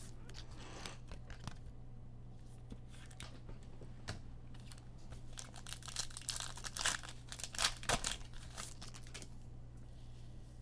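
Trading-card pack wrapper being torn open and crinkled, with rustling and light clicks of cards being handled; busiest from about six to nine seconds in.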